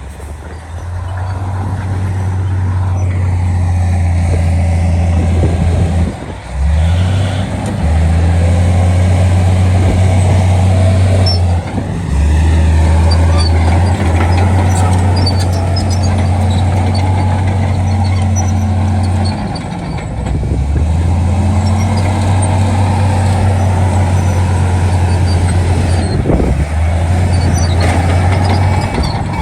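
Heavy earthmoving machinery's diesel engine running steadily as a deep drone. It briefly dips and shifts pitch a few times as the load and throttle change.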